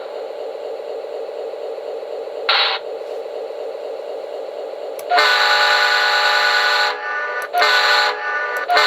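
QSI Maxx Traxx model-train sound unit playing a diesel locomotive idling, then its multi-chime air horn: one long blast about five seconds in, followed by two short blasts near the end. A brief burst of noise comes about two and a half seconds in.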